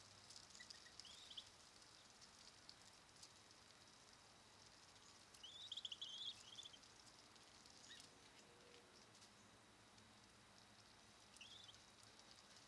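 Faint outdoor background with a steady high hiss, broken by three short runs of quick high bird chirps: one brief, one longer and louder about six seconds in, and one brief near the end.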